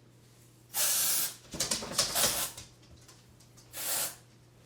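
Aerosol dry shampoo spraying in two short hissing bursts, about a second in and near the end. Between them is a short spell of irregular rustling and knocking.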